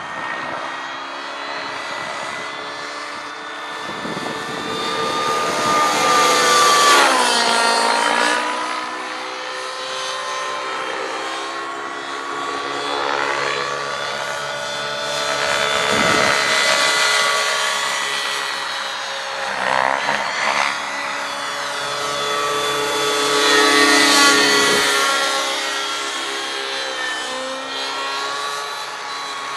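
Align T-Rex 700 nitro RC helicopter in aerobatic flight: its glow engine and rotor whine rise and fall in pitch as it swoops and flips. The loudest passes come about a quarter of the way in and again near the end, the pitch falling sharply after each.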